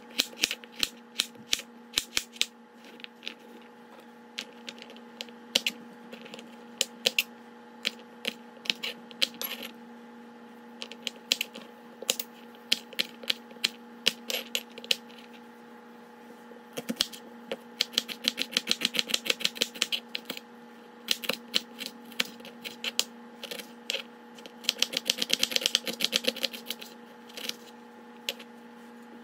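Kitchen knife chopping green beans and red onion on a wooden cutting board: sharp taps of the blade striking the board. The taps come singly and in short bursts at first, then in fast runs of rapid chopping past the middle and again near the end.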